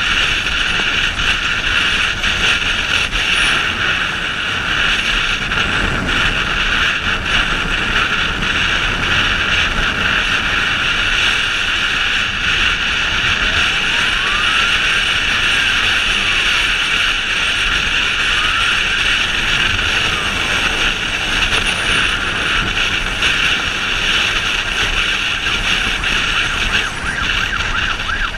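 Motorcycle riding through slow city traffic, with a steady, loud mix of engine and road noise. A siren wails faintly in the middle, rising and falling a few times.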